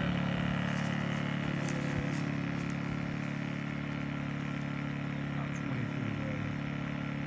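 Powerhorse 2000-watt portable inverter generator running steadily on its first run, brand new out of the box: a steady engine hum that eases slightly about three seconds in, with a few faint ticks early.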